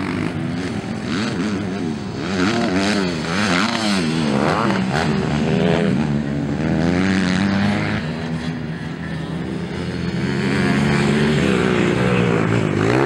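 Motocross dirt bike engines racing on the track, their pitch rising and falling again and again with throttle and gear changes, several engines overlapping.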